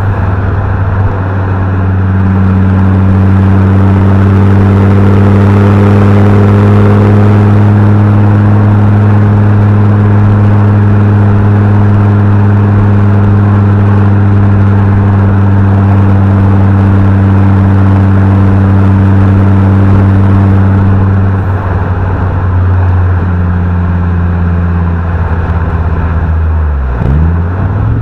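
Fiat Coupe 20v turbo's five-cylinder engine and exhaust, holding a steady note under way. About three quarters of the way through the note changes, and near the end the pitch dips briefly and comes back up.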